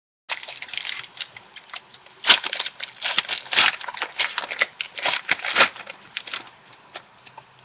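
Foil trading-card pack wrapper crinkling and tearing as it is pulled open by hand: a dense run of crackles and snaps, loudest about two and three and a half seconds in.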